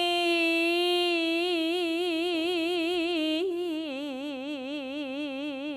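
A solo unaccompanied voice singing seodo sori, Korean folk song of the northwestern provinces, on one long held note. The note starts steady, takes on a wide, regular vibrato about a second in, and drops a step about three and a half seconds in, still shaking.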